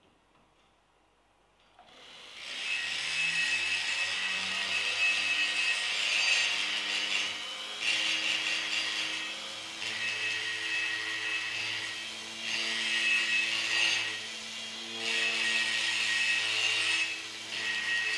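Die grinder whining at high speed with a rasping grind as its burr enlarges the aluminium intake port of a Honda PCX 150 cylinder head. It starts about two seconds in and comes in repeated passes of one to three seconds that dip briefly between strokes.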